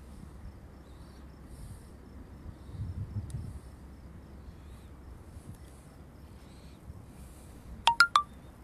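Quiet outdoor ambience: a faint low rumble that swells briefly about three seconds in. Near the end come three sharp clicks in quick succession, each with a short pitched ring.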